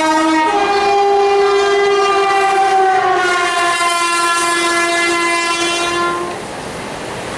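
Indian Railways electric locomotive sounding one long horn blast of about six seconds as an express train passes, its pitch stepping up slightly about half a second in. The horn stops about six seconds in, leaving the rumble and clatter of the coaches running past.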